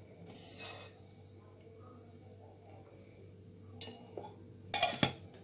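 Quiet kitchen handling as cooking oil is poured into a steel ladle: a soft rustle about half a second in, a few faint knocks, then a short, louder clatter of metal utensils near the end.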